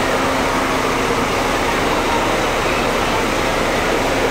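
Steady noise of heavy rain mixed with the hum of idling buses, an even wash with no distinct events.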